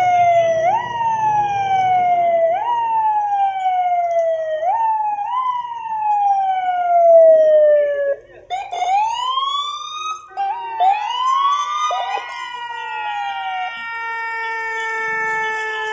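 Fire-engine sirens sounding together as a last-alarm salute. At first one siren climbs quickly and falls slowly, over and over, about every two seconds. From about eight seconds in, several more sirens wind up and hold long, steady overlapping tones.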